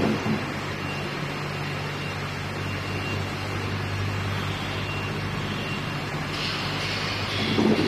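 HZM 799 backhoe loader's diesel engine running at a steady pace, with a knock at the start and another near the end. A higher hiss joins in at about six and a half seconds.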